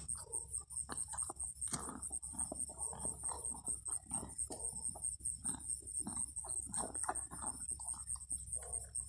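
An animal eating, with quick irregular chewing and munching sounds. A steady, high-pitched pulsing tone runs underneath.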